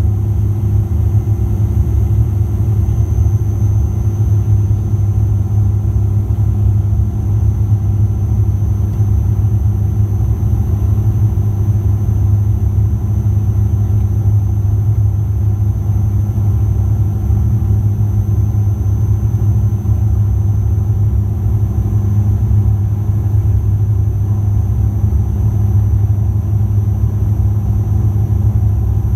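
Loud, steady cabin drone of a Bombardier Dash 8 Q400's two Pratt & Whitney PW150A turboprops and six-bladed propellers, heard through the cabin wall beside the engine during the descent on approach. A deep, even hum with fainter steady whines above it, unchanging throughout.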